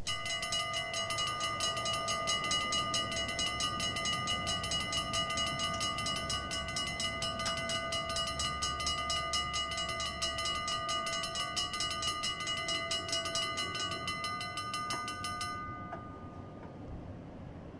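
Fast train passing: several steady ringing tones over a rapid, dense clatter. The ringing and clatter cut off about fifteen seconds in, leaving a quieter rumble.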